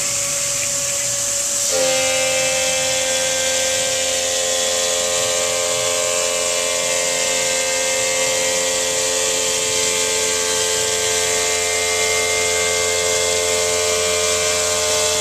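CNC stone router spindle running a diamond profiling wheel along a 3 cm countertop edge, a steady whine of several pitches that shifts to a new set of pitches about two seconds in. A constant hiss of water spray sits over it.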